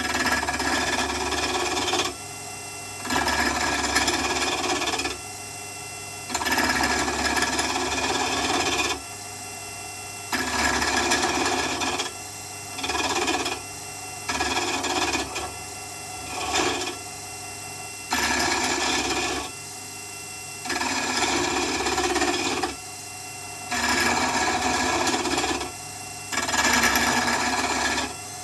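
Mini wood lathe spinning a pen blank while a turning tool cuts the wood in about a dozen separate passes, each one to two seconds long. The lathe motor hums steadily in the gaps between cuts.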